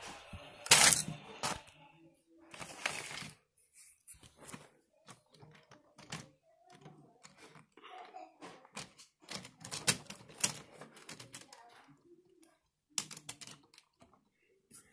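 Plastic Lego plates and track pieces being handled and set down: an irregular run of sharp clicks and knocks, loudest about a second in.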